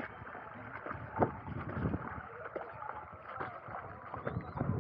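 Water splashing and sloshing, with irregular clicks and knocks throughout and one sharper knock about a second in.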